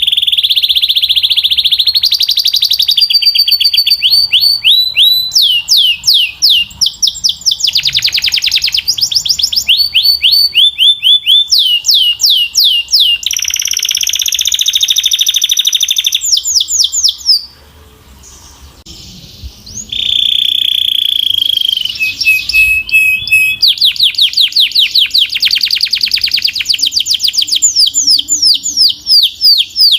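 Belgian canary singing a long, loud song of rapid rolling trills and fast repeated rising notes, with a few held buzzy tones; the song breaks off for about two seconds a little past halfway, then resumes.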